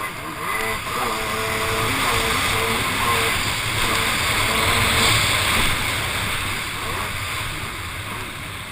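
Yamaha stand-up jet ski engine running out in the surf, swelling louder for a few seconds and then easing off, amid a rush of water and wind.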